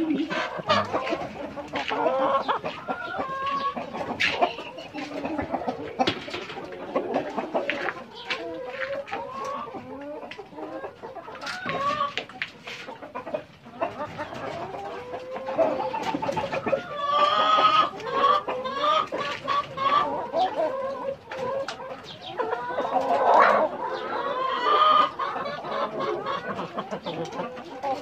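A flock of Rainbow Rooster chickens clucking and calling continuously, with many short overlapping calls and frequent sharp clicks.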